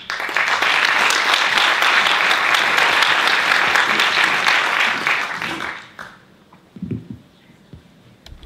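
Audience applauding, steady for about five seconds and then dying away.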